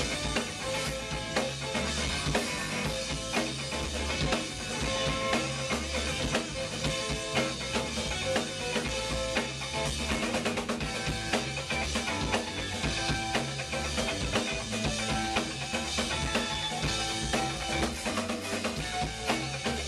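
Live band playing, with a drum kit to the fore: a steady beat of bass drum, snare and rimshots over electric guitar.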